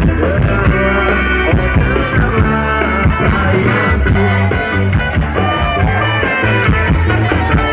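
Live band playing rock music loudly through a PA system, with guitar over a steady beat.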